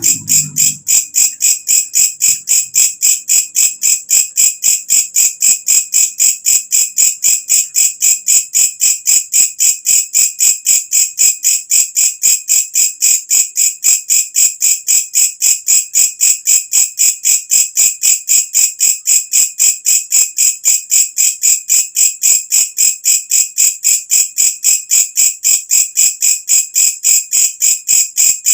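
Walang kecek katydid (bush cricket) calling: an even train of shrill chirps, about four a second, loud and steady.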